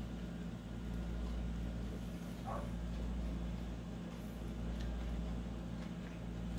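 A steady low mechanical hum runs throughout, with a few faint soft crunches as a lettuce-and-jalapeño taco is bitten and chewed.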